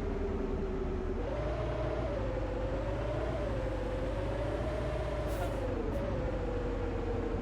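A bus driving, its engine and drivetrain giving a low rumble under a steady whine that rises in pitch about a second in and then wavers gently up and down with speed.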